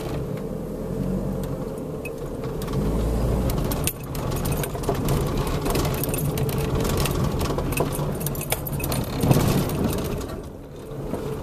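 Car driving slowly over a rough unpaved road, heard from inside the cabin: a steady low engine and tyre rumble with frequent rattles and knocks as the car jolts over the bumps.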